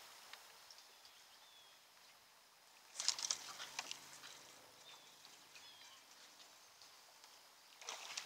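A dog's claws clicking and scrabbling on a boat deck as a Siberian husky gets up and walks, in a cluster of sharp taps about three seconds in and a shorter one near the end.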